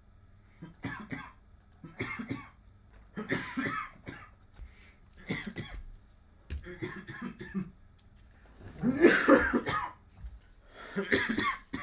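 Person coughing repeatedly, in about seven short fits about a second apart, the loudest and longest about nine seconds in.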